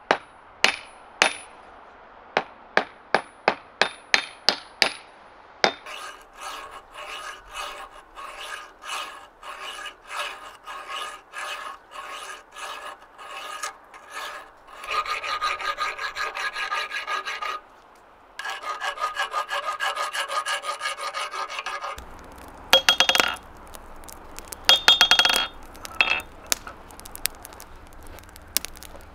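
About a dozen sharp, ringing hammer blows, driving the new wooden handle into the steel hammer head. Then a metal file scraping back and forth across the steel hammer head clamped in a vise, about two strokes a second, with a few further scraping bursts near the end.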